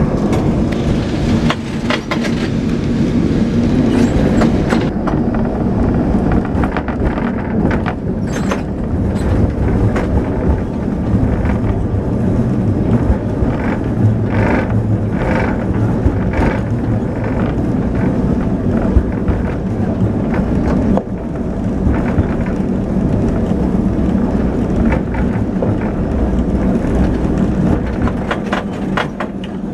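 Vintage electric tram running on street rails, heard from on board: a steady rolling noise of wheels and motor with frequent clicks and knocks from the wheels and car body.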